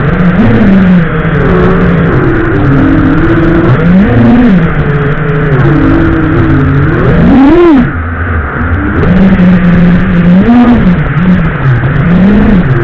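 FPV quadcopter's electric motors whining over a steady hiss, their pitch rising and falling with throttle, with a sharp climb and drop a little over halfway through.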